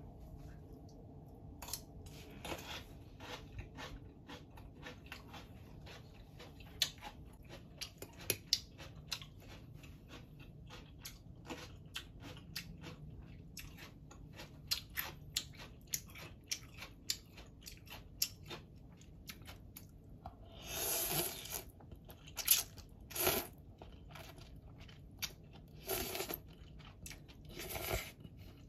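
Close-up chewing of a crisp pickle: many short, sharp crunches through the whole stretch. In the second half come several longer noisy bursts, up to about a second each, with the eating.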